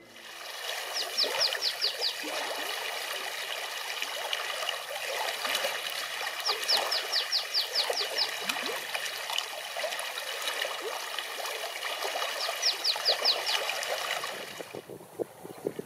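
Shallow river rapids rushing and gurgling over stones. Three times, about every six seconds, a small bird sings a short phrase of quick, high notes that each drop in pitch. The rushing drops away abruptly near the end.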